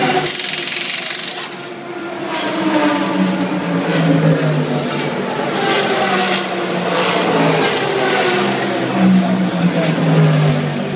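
Race car engines running, their pitch rising and falling, with a sharp hiss of air near the start and clinks of metal tools as the crew works on the wheel.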